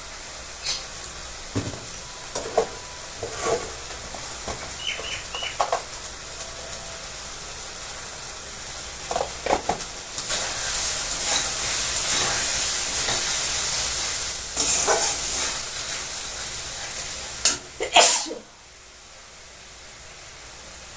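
Masala frying in a pan, sizzling steadily, with the clack of a spatula stirring it; the sizzle grows louder about ten seconds in. A loud, sudden burst comes about three seconds before the end, and after it the sizzle is fainter.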